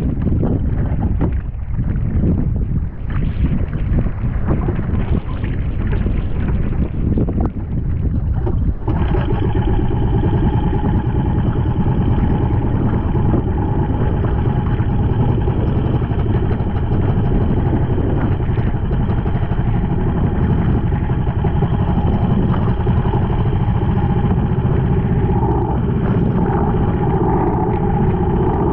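Wind on the microphone and waves against a small outrigger boat for the first several seconds. About nine seconds in, a boat engine comes in abruptly and runs steadily, with water splashing along the hull as the boat moves through the chop.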